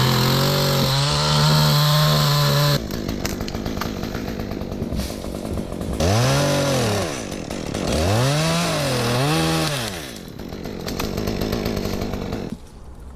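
Gas chainsaw running: held at high revs at first, then throttled down. It is revved up and back down three more times, then drops off near the end.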